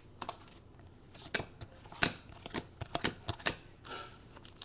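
Football trading cards being flipped through by hand: a run of light, irregular card snaps and slides.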